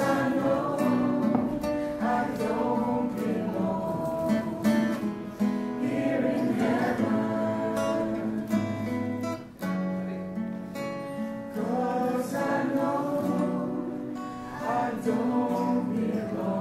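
A group of voices singing together to a strummed acoustic guitar, with a short break about halfway through.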